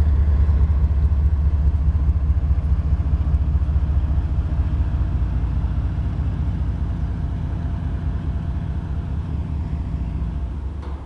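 Freight train of autorack cars rolling past close by: a low, steady rumble of wheels on rail that slowly gets quieter, falling off more sharply near the end.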